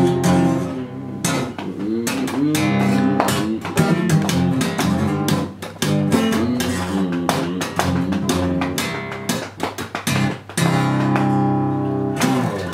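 Guitar strumming chords in a steady rhythm, an instrumental stretch of a song with no singing.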